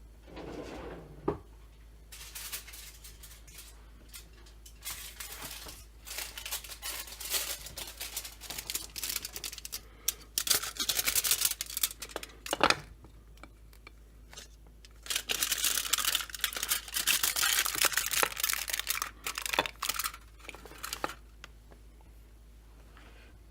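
Scratchy rubbing and scraping noise in three long bursts, with a couple of light knocks, one about a second in and one near the middle.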